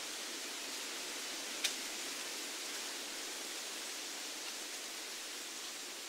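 Wind rustling through the leaves of broadleaf woodland trees, a steady even hiss, with one sharp click about one and a half seconds in.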